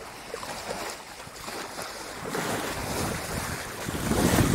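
Water rushing and splashing along the hull of a boat under way, with wind buffeting the microphone; it grows louder near the end.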